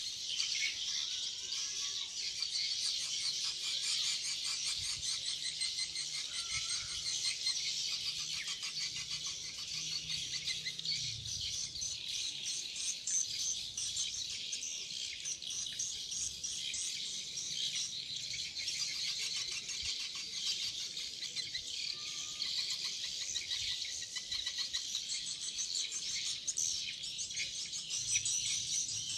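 Swiftlet calls: a dense, unbroken twittering of many rapid high chirps.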